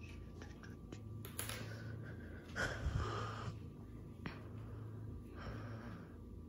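A person breathing near the microphone: three short breathy hisses, the loudest about halfway through, over a steady low hum.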